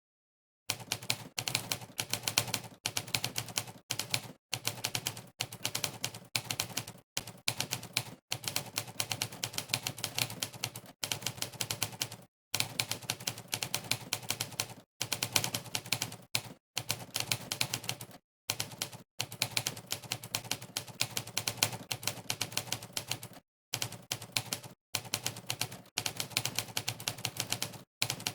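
Typewriter keystroke sound effect from a typing-test website: fast runs of sampled typewriter key clacks, one per keystroke, broken by brief dead-silent pauses. It starts after a moment of silence at the very beginning.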